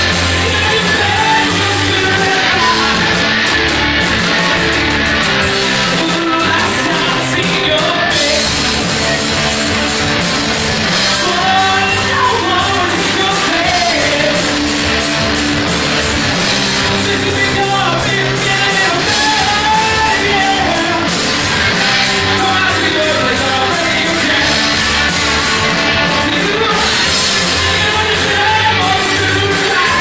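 Rock band playing live, with electric guitars and a sung lead vocal, loud and steady throughout.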